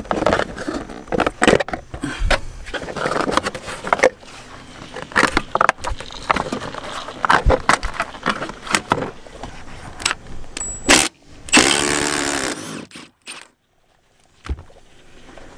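Hard plastic interior trim panels of a pickup truck being pried and pulled loose, with irregular clicks, snaps and rattles. About eleven and a half seconds in, a short whir lasts about a second.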